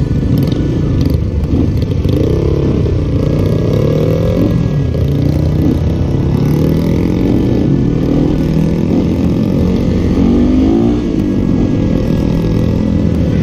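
Trail motorcycle engines revving up and down with the throttle, the pitch rising and falling again and again, at times two engines at once.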